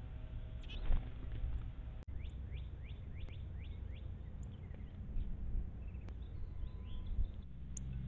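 Northern cardinal song: a run of about six quick down-slurred whistles, with a few sharp high chips scattered around it. Before it, about a second in, comes a short burst of flutter as a cardinal takes off from the water's edge.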